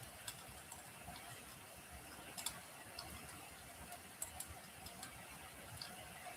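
Wood fire burning in a fireplace: soft steady hiss and low rumble of the flames with irregular sharp crackles and pops, the strongest about two and a half and four seconds in.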